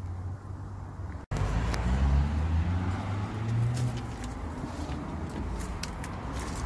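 Engine of a road vehicle running nearby, its low pitch drifting up and down, with a brief dropout in the sound about a second in. Light footsteps on a leaf-strewn path tick over it.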